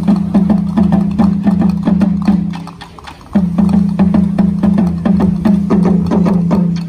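Dance music with a fast clicking, wood-block-like beat over a held low note. It breaks off for a moment about two and a half seconds in, then picks up again and fades near the end.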